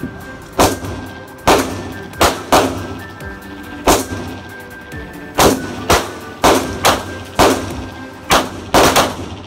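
Pistol shots inside an indoor shooting range: about a dozen sharp cracks at uneven intervals, some in quick pairs, each trailing off in a short echo off the range walls.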